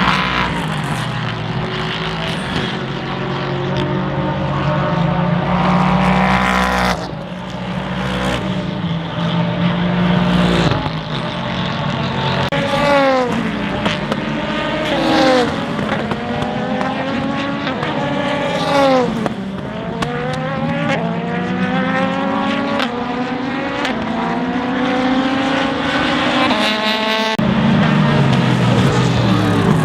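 Race cars passing one after another at speed, their engines climbing in pitch through the gears and sweeping away as they go by. Several cars overlap, and a steady low drone runs under the first quarter and returns near the end.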